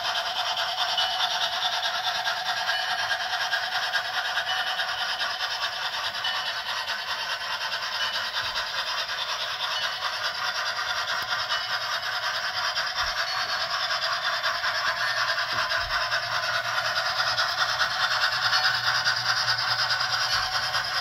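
On30 model trains running on the layout: a steady rattle of small wheels on the track, with a low hum that grows louder in the second half.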